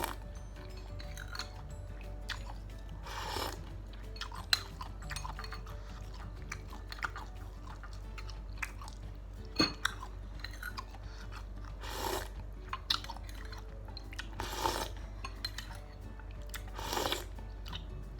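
Close-miked eating of chicken noodles and meatballs: chewing, with several short noisy mouthfuls and a few sharp clicks of utensils against the bowl, over steady background music.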